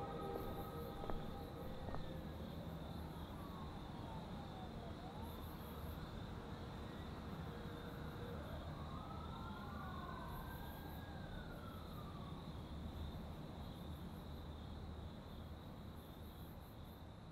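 Faint night-time city ambience: an emergency siren wailing up and down, crickets chirping in short repeated bursts, and a low city rumble beneath, all fading out near the end.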